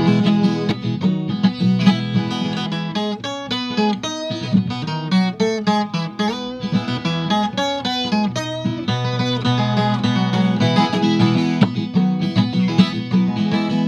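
Viola caipira, the Brazilian ten-string folk guitar, playing an instrumental passage of quickly plucked melody notes over ringing low strings, between sung verses of a hymn.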